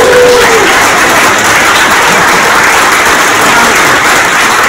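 Audience applauding, loud and steady throughout, with one voice calling out in a long held note that fades in the first second.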